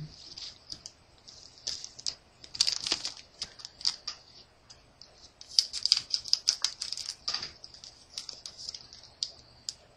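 Trading cards and a foil booster-pack wrapper handled by hand: quick, crisp clicks and rustles in two busy runs, with quieter pauses around them.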